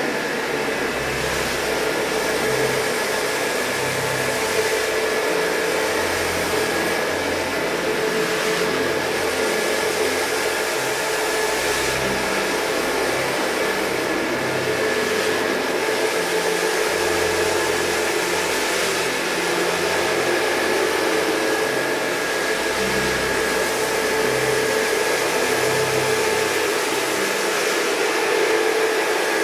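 Electric cylindrical-brush carpet scrubber running steadily, its motor holding a constant hum with a couple of steady tones over the wet hiss of the brushes working shampoo foam into a rug.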